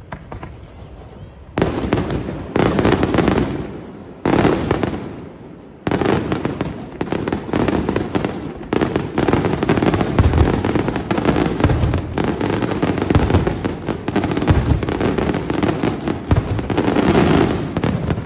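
Aerial fireworks display. After a brief lull, single shell bursts go off one after another about a second and a half in. From about six seconds in comes a dense, continuous barrage of rapid bangs, which begins to tail off near the end.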